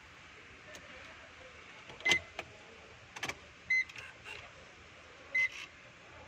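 Three short, high electronic beeps about a second and a half apart, each coming with a sharp click, among a few lighter clicks and knocks: the van being readied to start.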